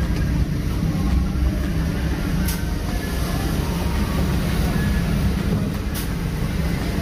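A steady low rumble, with two brief clicks, one about two and a half seconds in and one about six seconds in.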